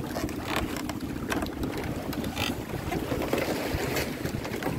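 Strong sea wind buffeting the microphone as a steady low rumble, with scattered light knocks and clicks.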